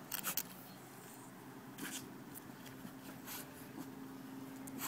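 Faint rustling and scratchy brushing of a wet West Highland white terrier's fur against a towel as the dog rolls and rubs itself dry, a few short scuffs.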